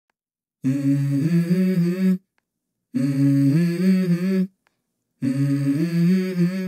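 Unaccompanied wordless vocal melody, a single voice in three phrases of about a second and a half each, with dead silence between them.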